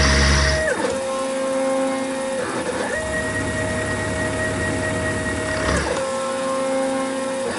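Milling machine cutting cast iron with a 1/4-inch ball end mill, its motors giving a steady whine. The whine drops in pitch under a second in, rises again about three seconds in, and drops once more near the end, as the machine shifts between feed moves. A louder hiss and hum cuts off just before the first drop.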